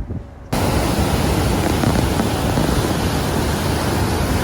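Murchison Falls, where the Nile plunges through a narrow gorge, heard close up as a steady, dense rush of falling water that cuts in sharply about half a second in.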